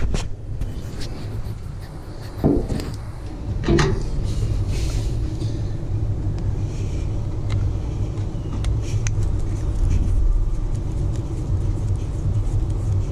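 A steady low rumble throughout, with a few light clicks and taps of a hand tool and small parts as a screw is worked out of the fuel-tank vent check valve.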